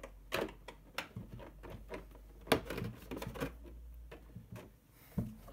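Plastic body shell of an RC crawler being pressed down and fitted onto the chassis by hand, giving irregular light clicks and knocks, with one sharper knock about two and a half seconds in.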